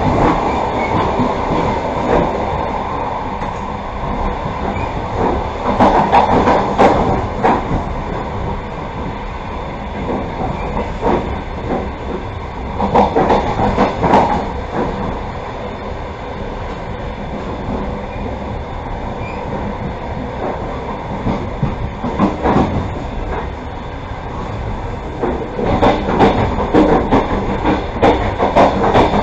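Passenger train coach running along the track, heard from inside the moving train: a steady rumble with recurring spells of clattering clicks from the wheels over the rails, the busiest near the end.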